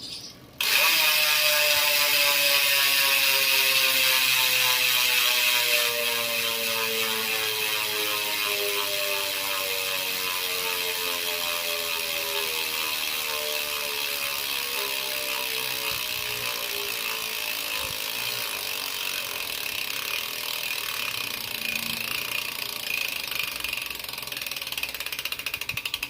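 Goldix GDX370 bicycle hub's freehub pawls ratcheting as the wheel is spun and left to coast. It starts suddenly as a fast, loud buzz, then slowly drops in pitch and rate as the wheel slows, breaking up into separate clicks near the end.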